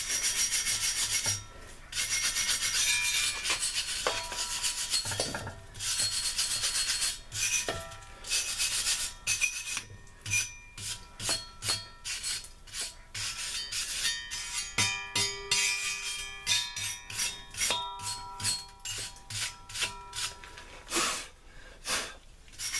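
The anvil stand being scrubbed clean by hand before painting. In the first half come long rasping strokes, a few seconds each. After that the strokes are shorter and quicker, with a few light clinks.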